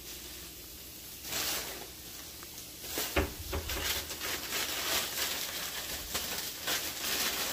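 Plastic grocery bags rustling and crinkling as they are handled, in irregular bursts starting about a second in, with a sharper knock about three seconds in.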